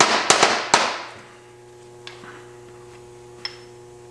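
Steel brake parts, a caliper and its bracket, clanking against each other and the rotor as they are handled: a quick run of four sharp metallic knocks with ringing in the first second, then a few lighter clicks and a short metallic ting.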